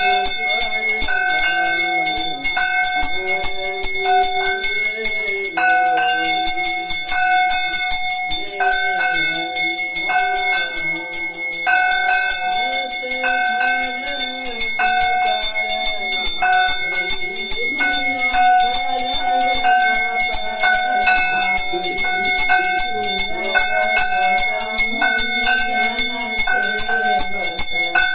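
Brass puja hand bell (ghanti) rung rapidly and without pause during an aarti, a fast continuous ringing.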